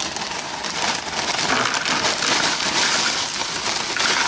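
Tortilla chips rattling out of a crinkling plastic chip bag into a bowl, a continuous dense crackle.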